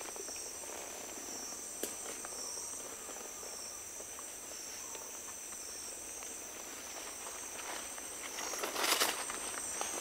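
Steady high-pitched chorus of rainforest insects. Near the end, footsteps rustle on the forest floor as people start walking.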